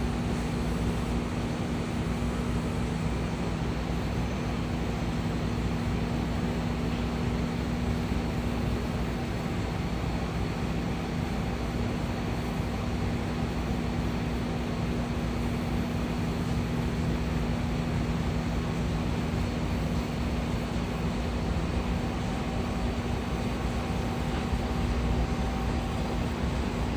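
Steady machinery drone aboard a ship, a constant hum with an even rush of noise, unchanging throughout.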